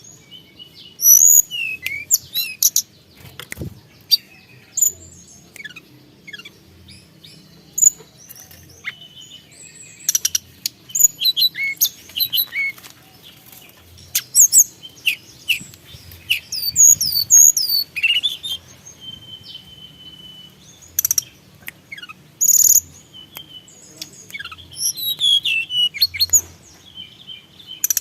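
A tledekan gunung songbird singing in loud bursts of high, rapid sweeping whistles and chirps, with pauses between phrases and one longer held steady whistle about two-thirds of the way through.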